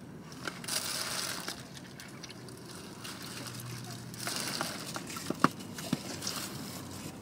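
Plastic takeout bag and foil food wrappers rustling and crinkling as food is unwrapped, in short spells with a few small clicks.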